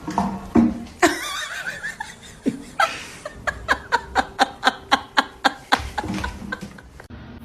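People laughing, breaking into a run of short, even laughs, about four or five a second, in the middle.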